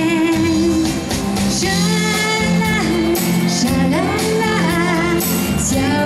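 A female singer singing a pop song live over its instrumental accompaniment.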